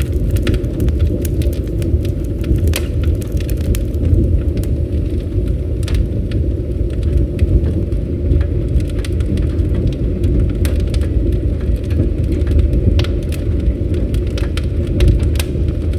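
Campfire burning: a steady low rush of flame with frequent sharp crackles and pops scattered irregularly throughout.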